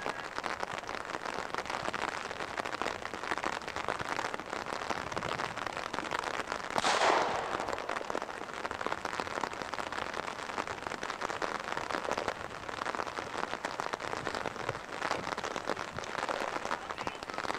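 Steady rain pattering, a dense crackle, with one brief louder rush of noise about seven seconds in.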